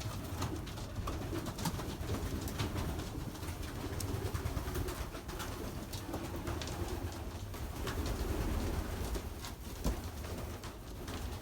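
Racing pigeons cooing in their loft over a steady low rumble of storm wind, with a single knock about ten seconds in.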